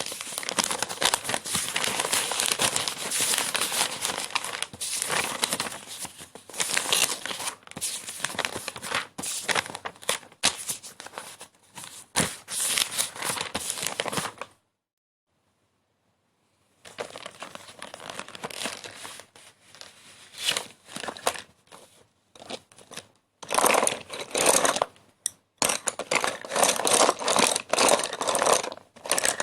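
Crinkling and crumpling, dense and crackly, in separate stretches with a clean two-second silence about fifteen seconds in and short gaps near the end.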